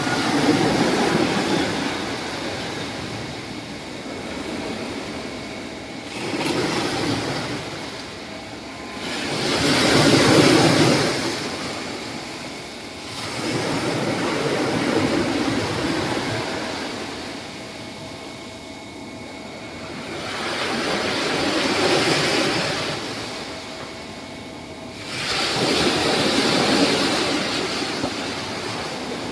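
Small sea waves breaking and washing up a sandy beach, the surf swelling and easing six times, every four to six seconds, the loudest surge about ten seconds in.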